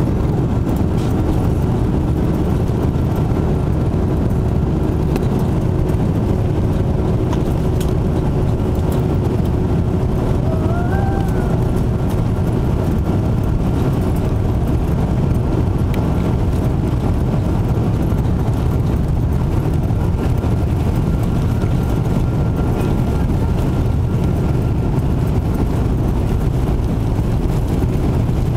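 Airbus A330-200 turbofan engines heard from inside the passenger cabin at a window seat over the wing during the take-off ground roll: a loud, steady, deep rumble with a faint whine that fades out about halfway through.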